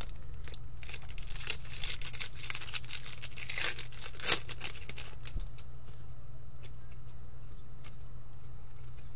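Foil trading-card pack wrapper torn open and crinkled for about four seconds, ending in one sharper crackle; after that only faint light clicks of cards being handled.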